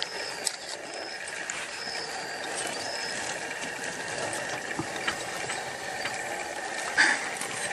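Continuous dry, rasping rattle of the kind a porcupine makes shaking its hollow quills, with a single sharp knock about seven seconds in.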